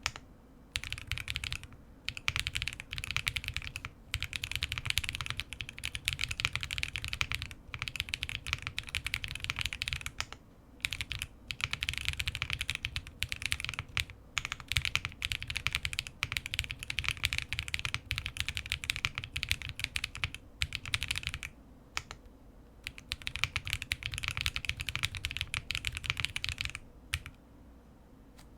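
Typing in bursts on a QK65 mechanical keyboard with TTC Holy Panda tactile (non-clicky) switches, lubed with Krytox 105/205, on a POM plate with plate and silicone foam, capped with JTK Azure keycaps. Runs of keystrokes with short pauses, stopping shortly before the end.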